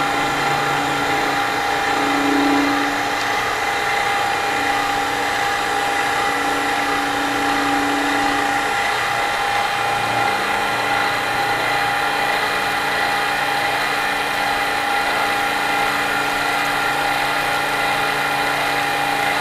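Milling machine running steadily while its end mill climb-mills a relief around the pivot of a folding-knife liner, cutting about five thousandths deep. A steady whine over a hum; the lower hum shifts pitch about halfway through.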